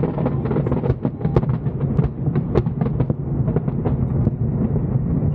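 Fireworks going off in quick succession: a continuous low booming of shell bursts with many sharp cracks on top.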